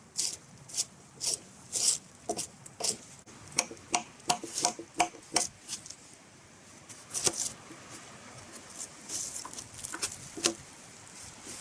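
Light chopping strokes of a blade biting into wood, about two or three a second at first, with a short ringing note on a few strikes. After a pause a little past the middle, a few softer strokes follow.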